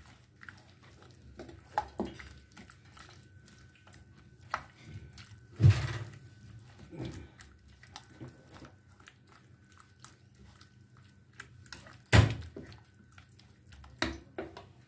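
Boiled potato dumplings being tossed in oil and spices in a bowl with a spatula: soft wet squelches and scattered light clicks of the spatula on the bowl, with two louder knocks, one about six seconds in and one about twelve seconds in.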